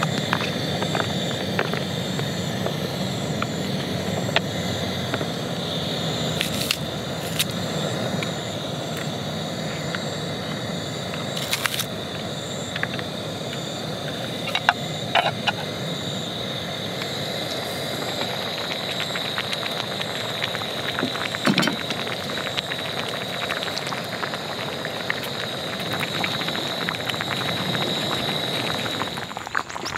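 Samgyetang broth cooking in a pot over a small gas canister stove: a steady burner hiss with fine crackling and bubbling that grows busier as the soup comes to a simmer, after the soup is poured from its pouch near the start.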